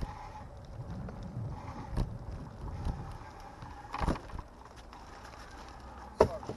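Bicycle ridden along a tarmac path: steady tyre and road rumble, with sharp knocks as it goes over bumps about two and four seconds in and a louder one near the end.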